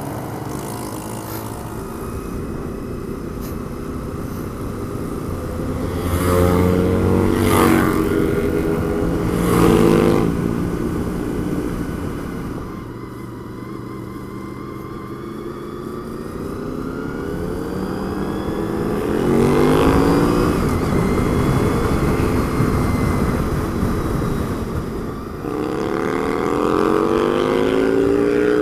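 A 1998 Honda VFR800's V4 engine pulls hard under acceleration. The revs sweep up several times, with the loudest pulls about a quarter and a third of the way in, another around two-thirds, and one near the end. Between them it runs more quietly and evenly.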